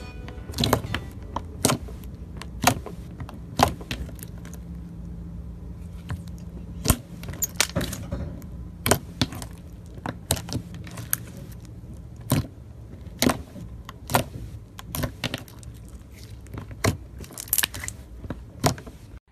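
Irregular series of sharp crackles and clicks, about one to two a second, over a faint low hum.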